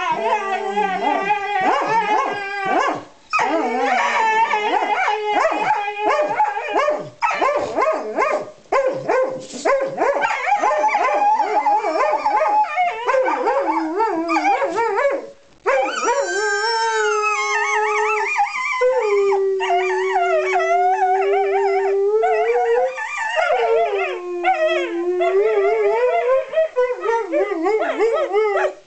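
Dogs playing and vocalising almost without a break: wavering howls, yips and barks overlapping, with one long steady howl about two-thirds of the way through.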